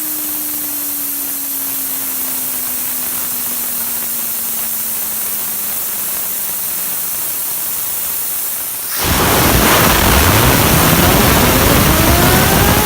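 A fidget spinner spinning under a steady hiss, its faint hum sliding slowly down in pitch as it slows. About nine seconds in, a much louder rushing noise starts suddenly and the spinner's whine climbs steadily in pitch as it spins up.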